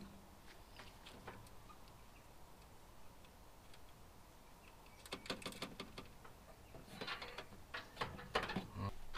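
Light metallic clicks and rattles of small screws and nuts being fitted to a barrel bolt on a steel tool-chest drawer, coming in two clusters from about five seconds in.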